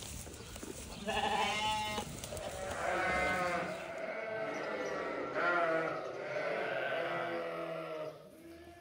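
Flock of sheep bleating: several long, wavering calls one after another, starting about a second in and overlapping through the middle.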